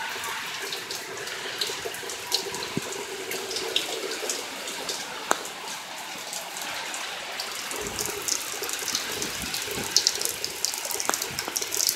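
Steady heavy rain from a tropical storm, with many sharp drips and splashes close by that come thicker in the last few seconds.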